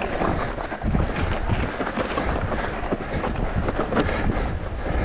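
Wind buffeting the microphone over the clatter of a Specialized Turbo Levo electric mountain bike riding a trail, with many small knocks and rattles from the bike running over the ground.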